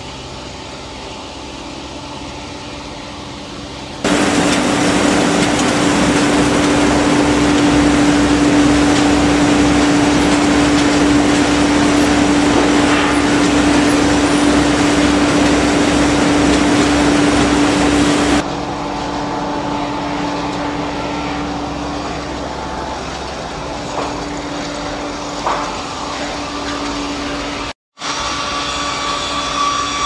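Sawmill line machinery running: electric motors, circular saws and chain conveyors making a steady mechanical noise with a constant hum. It gets much louder about four seconds in and drops back about fourteen seconds later, with a brief break near the end.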